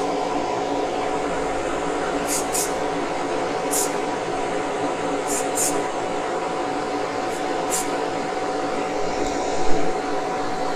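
Spray booth extractor fan running with a steady hum, while paint is sprayed onto a small part in short bursts, about seven, mostly in quick pairs.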